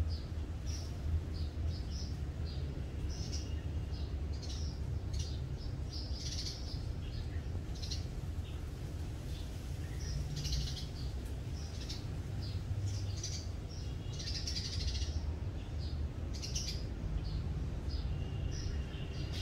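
Small birds chirping: many short, high chips scattered throughout, over a steady low rumble.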